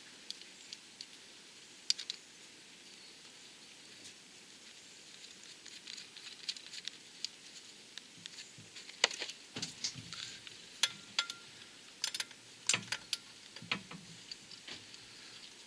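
Scattered light clicks and taps of metal parts being handled, likely the clutch alignment tool and clutch parts, becoming more frequent and louder past the middle, with a few heavier knocks.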